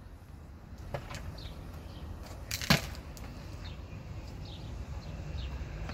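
A single sharp knock about two and a half seconds in, with a couple of fainter clicks, over a steady low rumble and a few faint high chirps.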